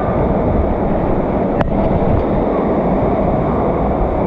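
Steady, loud rushing din of an indoor waterpark: water pouring and splashing off the slides. A single sharp click about one and a half seconds in.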